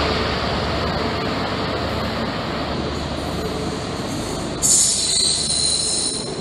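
A Great Western Railway HST with Class 43 diesel power cars pulling away along curved track, a steady rumble of engine and wheels. About three-quarters of the way through, a high-pitched wheel squeal of several shrill tones sets in and becomes the loudest sound.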